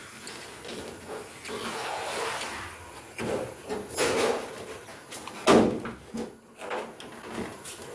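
Irregular knocks, slides and scrapes of parts being handled while a washing machine is taken apart, with the sharpest knock about five and a half seconds in.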